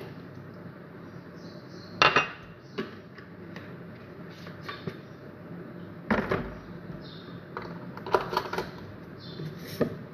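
Kitchen clatter as a glass cup and a plastic oil bottle are handled and set down on a countertop: sharp knocks and clinks, a cluster about two seconds in, another around six, more near eight and one just before the end.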